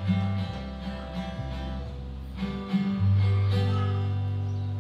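Acoustic guitar being strummed, ringing chords that change several times with a shifting low bass note.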